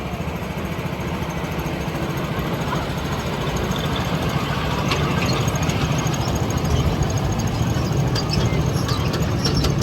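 A vehicle engine running steadily with a low rumble that slowly grows louder, with a few light clicks in the second half.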